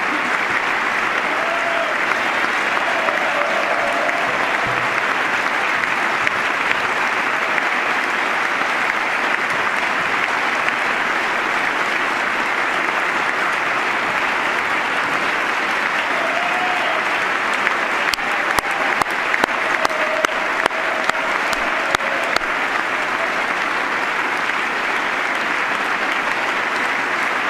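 Long, steady applause from a large audience, with a few faint voices in it. About two-thirds of the way through, some sharper single claps stand out.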